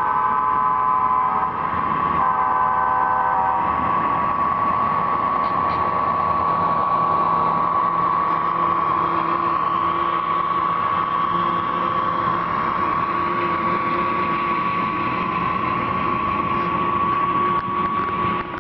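Diesel locomotive horn sounding twice, once in the first second and a half and again from about two to three and a half seconds in, then a steady diesel running sound with a constant high whine as the model train passes.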